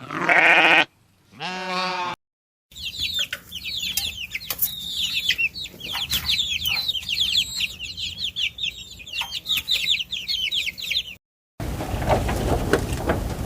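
Two bleats from sheep or goats: a loud call, then a shorter one that rises and falls. After a cut, a crowd of young poultry cheeps continuously, with many rapid, high, falling peeps.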